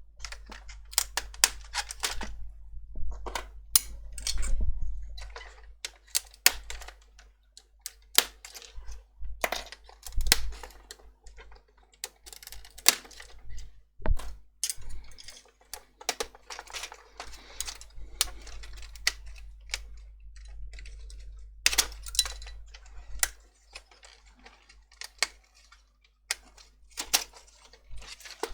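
Irregular sharp clicks and light knocks of hands and small tools handling the plastic housing and circuit board of a car instrument cluster being taken apart.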